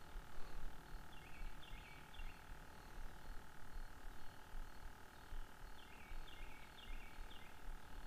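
A bird calling faintly in short series of repeated notes, three about a second in and four more near the end, over a low steady outdoor rumble.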